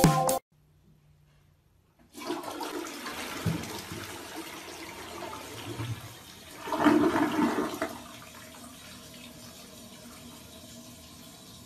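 A toilet flushing: water rushing into the bowl starts abruptly about two seconds in, swells loudest about two thirds of the way through, then tails off to a quieter steady hiss.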